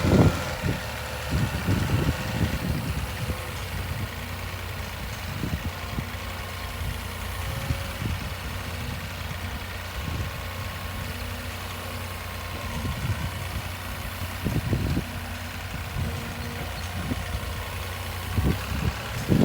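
Engine of a heavy delivery vehicle running steadily at idle, with irregular low thumps throughout, the strongest at the very start.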